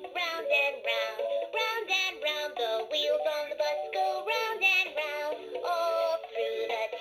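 Bright electronic children's tune with a synthetic singing voice: a steady run of quick, stepping notes.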